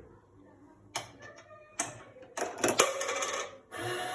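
A coin dropping into a coin-operated sanitary napkin vending machine, clicking and rattling through the coin mechanism. Near the end the machine's dispensing motor starts up with a steady hum as it turns the spiral to release a pad.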